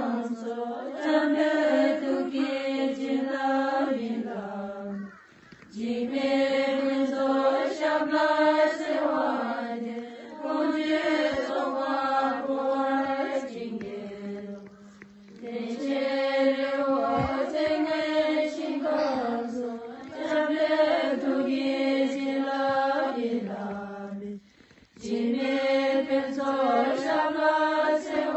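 Slow chanted mantra: a voice intoning long held notes that step up and down, in phrases of several seconds broken by short pauses.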